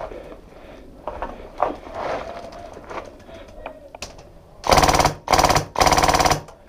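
Polarstar Fusion Engine HPA airsoft MK46 firing three quick full-auto bursts, each a rapid string of shots, starting a little under five seconds in. Before them come a few faint clicks and rustles.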